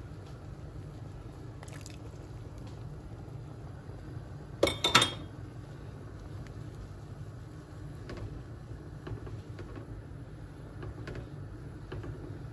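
Wooden spoon stirring soup in a pot, with faint liquid sloshing and light clicks over a steady low hum; about five seconds in, two or three sharp, loud knocks.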